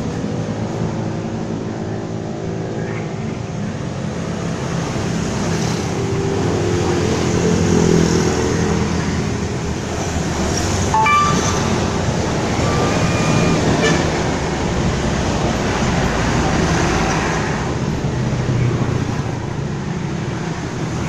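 A person snoring loudly: a steady, rough rumble that swells and eases with each breath every few seconds.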